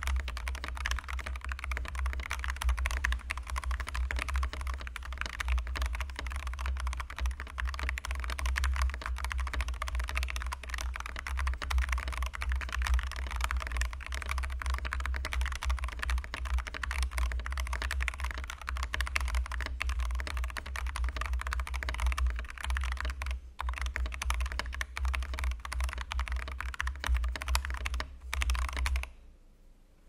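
Continuous fast typing on a CMK87 mechanical keyboard with stock, unmodded Ice Mint switches: a dense stream of key clacks. The typing stops about a second before the end.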